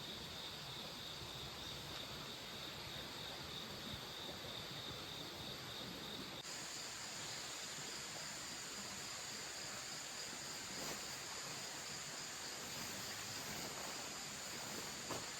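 Autumn insects trilling steadily over the even rush of a mountain stream. A little before halfway through, the insect song suddenly shifts to a higher pitch.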